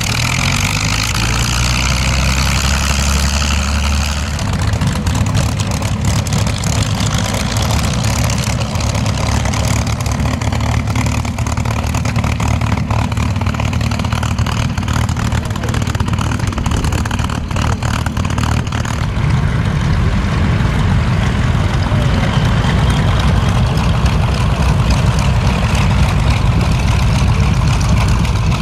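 Piston aircraft engine running steadily, growing louder about two-thirds of the way through.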